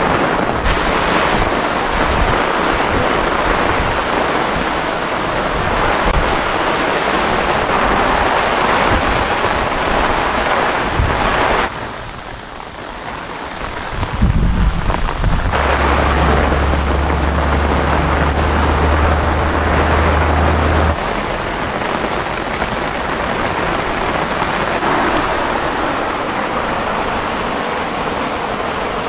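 Heavy pouring rain falling steadily, with a short quieter stretch about twelve seconds in and a low steady rumble through the middle that cuts off suddenly.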